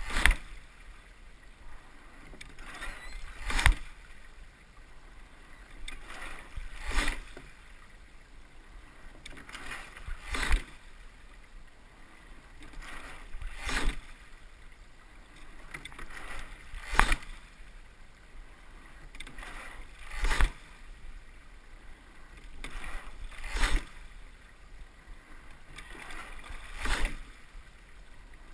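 Sweep-oared rowing pair rowed at an easy, steady rate of about one stroke every three and a third seconds. Each stroke gives a sharp knock from the oars in their oarlocks, with water rushing along the hull between strokes.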